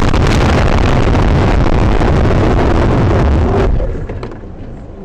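Car crash heard from a dashcam: a loud, continuous rush of noise with knocks and clatter as the camera is thrown about, overloading its microphone. It drops off sharply about three and a half seconds in, leaving quieter rustling and a few clicks.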